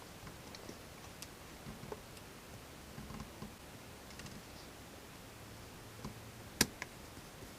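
Faint, scattered clicks and taps of a screwdriver and a tiny screw against a plastic car key fob casing, with one sharper click near the end.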